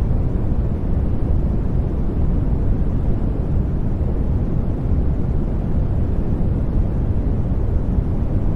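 Steady sleep-aid noise track, deep and even, with most of its energy low down and little hiss on top.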